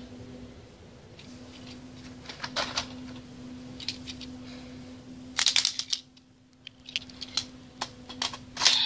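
Hard plastic clicks and clacks from handling toy Kamen Rider Build Full Bottles and slotting them into the Build Driver belt toy. A cluster of louder clacks comes a little past halfway and more near the end, over a faint steady hum.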